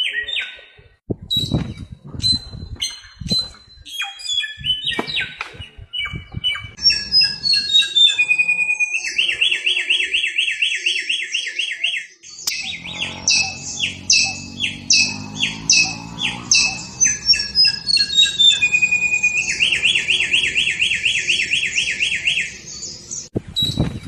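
Samyong songbird singing loudly. Sharp chirps and whistled notes give way to falling notes that run into a long, fast buzzing trill, then a string of rasping notes and a second long buzzing trill near the end.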